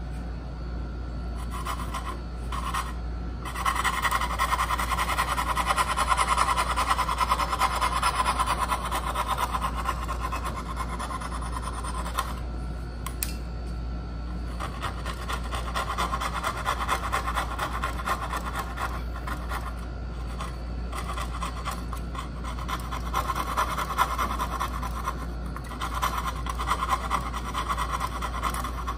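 Hand saw cutting through wood in steady back-and-forth strokes, pausing briefly about twelve seconds in before carrying on.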